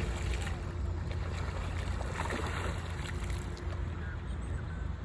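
Canada goose goslings splashing in pond water as they dive and bathe, a few short splashes over a steady low rumble of wind on the microphone.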